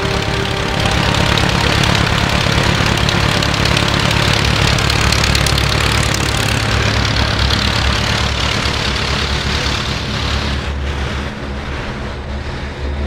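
Van's RV-7 kit plane's engine and propeller running, heard from inside the cockpit. It gets louder about a second in and eases off near the end.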